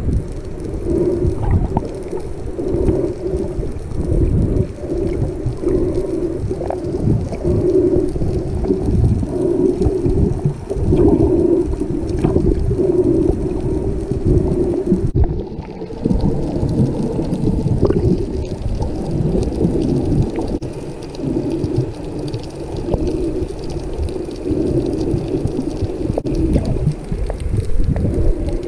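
Underwater sound picked up by a submerged camera while snorkeling: a muffled low rumble of moving water with a hum that swells and fades about once a second, and a few faint clicks.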